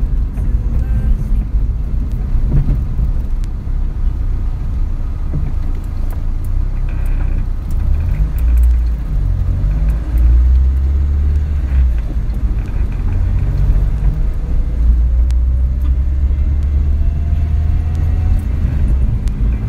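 Car driving, heard from inside: a steady low road and engine rumble. It slows nearly to a stop, then a faint engine note rises slowly in pitch as the car speeds up again.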